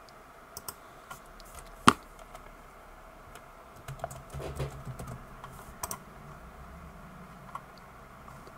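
Typing on a computer keyboard: scattered key presses with one sharp, louder click about two seconds in and a quicker run of keystrokes around the middle.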